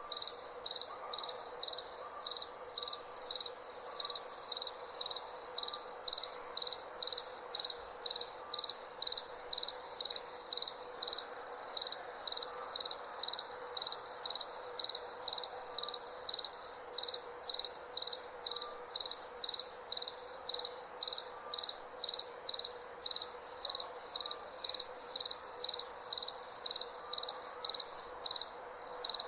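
A cricket chirping, short high-pitched chirps repeating evenly at about two a second.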